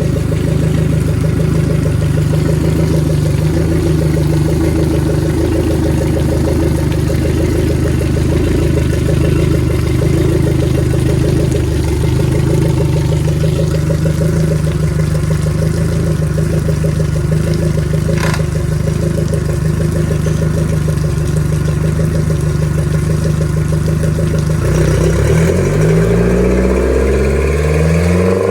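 2004 Yamaha 150 hp outboard motor running steadily, then revved up and back down near the end.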